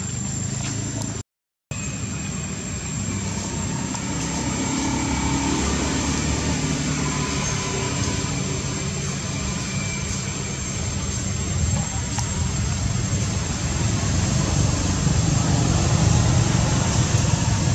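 Steady low outdoor rumble that grows louder near the end, with a faint high-pitched tone above it; the sound drops out briefly about a second and a half in.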